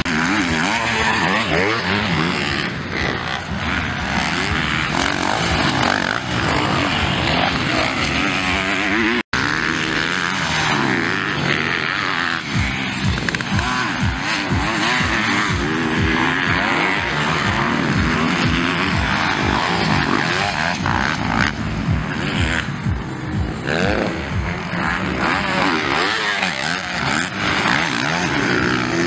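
Several MX1 motocross motorcycles racing, their engines revving up and down and overlapping. The sound cuts out for a split second about nine seconds in.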